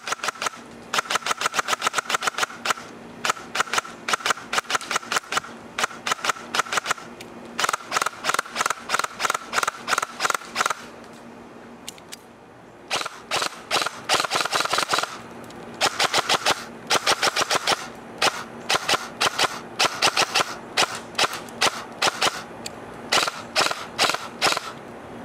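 G&G TR16 MBR 308WH electric airsoft rifle (AEG) firing strings of rapid sharp shots, some in quick bursts, with short pauses between strings and a lull of about two seconds near the middle. A steady whir runs under each string of shots.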